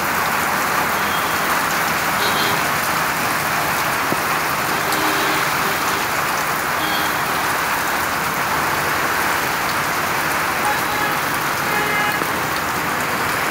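Heavy rain pouring onto wet pavement and puddles, a dense, even hiss that holds steady throughout.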